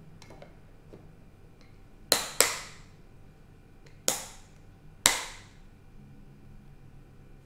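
Four sharp plastic snaps as the clip-down locking tabs of a plastic lid are pressed shut on a square glass food container. Two come in quick succession about two seconds in, then one more about four seconds in and another about five seconds in.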